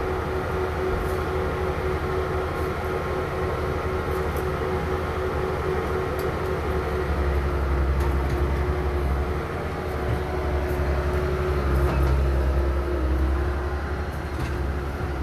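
Concrete mixer truck's diesel engine running steadily, a constant droning tone over a deep rumble; the rumble grows louder about seven seconds in.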